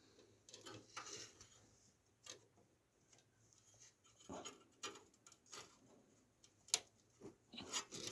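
Faint, scattered clicks and rustles of PC power-supply cables and their plastic connectors being handled and routed, with a sharper click about two-thirds of the way through.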